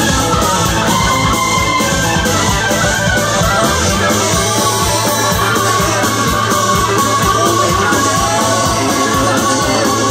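Live band playing loud rock-blues music over the PA, electric guitar over a steady drum beat.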